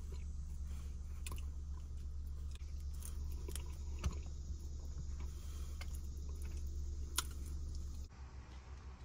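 Someone eating boiled peanuts, opening the soft shells and chewing, with scattered small clicks over a steady low hum.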